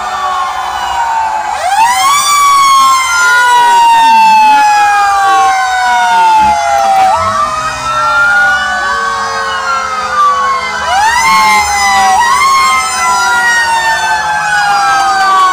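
Several fire truck sirens wailing at once, their pitches sweeping up quickly and falling slowly and overlapping each other. A loud one starts close by about a second and a half in, heard from inside a fire truck's cab.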